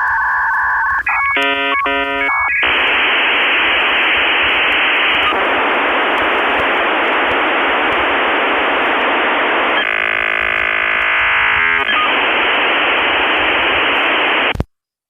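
Electronic beep tones and a brief rapid run of several tones, then a steady radio static hiss with a stretch of buzzing tones through it, cutting off suddenly near the end.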